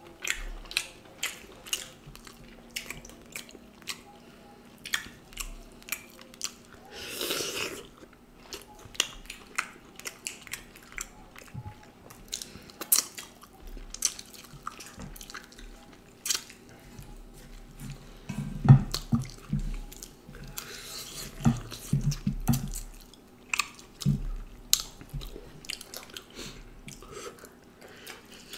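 Close-miked chewing and mouth sounds of people eating duck curry with rice-flour flatbread by hand: many short, wet clicks of lips and teeth. A short hiss comes about seven seconds in, and a few low hum-like sounds come about two-thirds of the way through.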